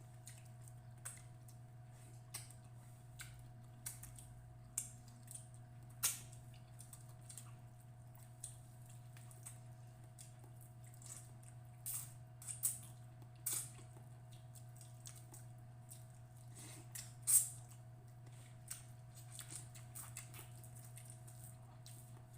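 Close-up eating sounds while chewing escabeche tilapia and rice: scattered wet mouth clicks and smacks, the sharpest about six, twelve and seventeen seconds in, over a steady low hum.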